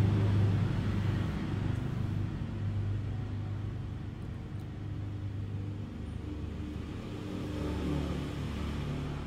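A motor vehicle's engine running with a steady, low rumble; its pitch drops a little about six seconds in.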